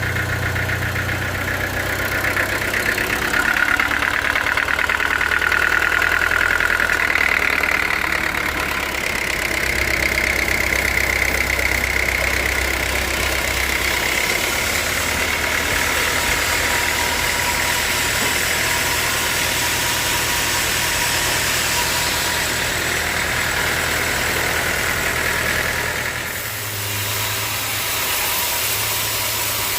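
Sawmill engine running steadily under a higher whine that wavers in pitch. About 26 seconds in the sound dips briefly and then settles into a changed pitch.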